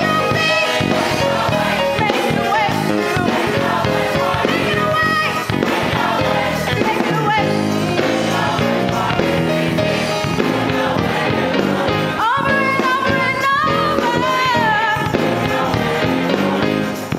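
Gospel choir singing over instrumental accompaniment, with a lead voice rising and wavering above it about twelve seconds in.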